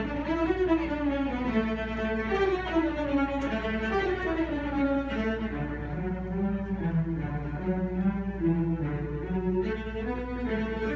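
String orchestra playing live, a slow flowing melody in the low strings over violins and double bass, with a steady low hum beneath.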